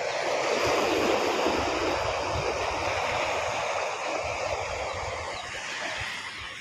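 Sea waves breaking and washing up the shore: a rush of water that swells at the start and slowly eases off.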